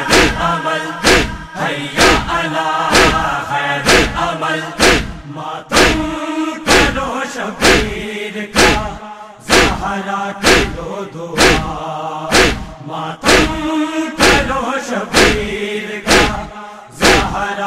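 Crowd of mourners beating their chests in unison (matam), a sharp slap about once a second, with a noha chanted by many voices over the beat.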